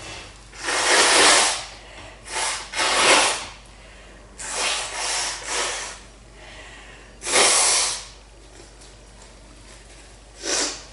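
A girl blowing her nose hard, about eight separate noisy blasts of air: a long one about a second in, a pair around three seconds, a quick run of three near five seconds, another strong one about seven seconds in, and a short last one near the end.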